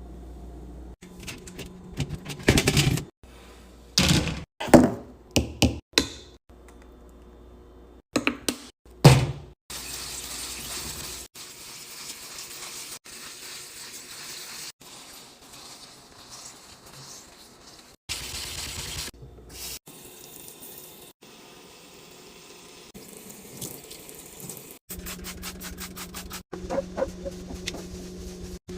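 Kitchen organizing sounds: a run of sharp knocks and clicks, like containers and lids being handled and set down, then stretches of running tap water at a sink, changing abruptly several times.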